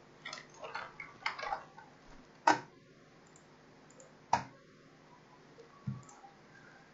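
Typing on a computer keyboard in a few quick bursts, then two sharper single clicks about two seconds apart.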